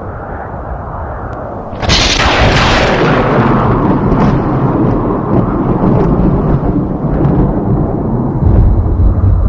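Close thunderclap: a sudden sharp crack about two seconds in, following a low rumble, then a long rolling rumble that swells again near the end.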